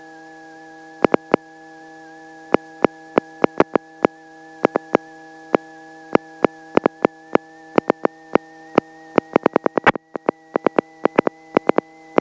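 Electronic hum and whine on a Robinson R44 helicopter's headset intercom feed: a steady stack of tones with a high tone slowly rising in pitch, broken by sharp clicks that come faster and faster toward the end.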